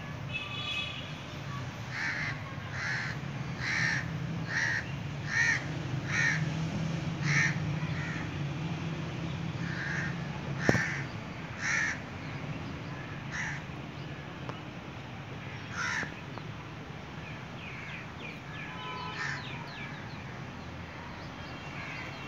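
A bird calling with short, loud calls repeated about once a second, then more sparsely, over a steady low background rumble, with one sharp click about halfway through.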